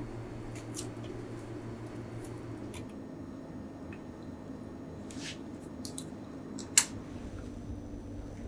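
Salmon grilling on a wire rack over a small tabletop clay grill: sparse sharp crackles and pops over a steady low hum, with one louder pop near the end.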